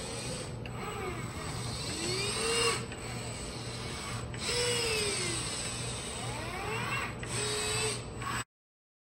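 Lincoln Fanuc collaborative robot arm's joint servo motors whining as the arm moves between taught points. The pitch rises and falls with each move, over a steady low hum. The sound cuts off suddenly near the end.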